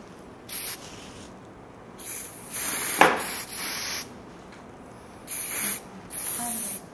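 Aerosol hairspray can sprayed in a series of short bursts of hiss, about six in all: one near the start, a longer run of spritzes from about two to four seconds in, and two more near the end.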